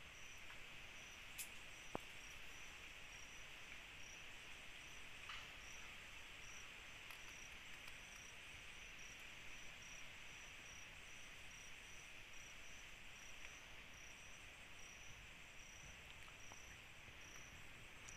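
Night insects: a cricket chirping in a high, even rhythm, about two chirps a second, over a steady hiss of other insects, with a few faint ticks.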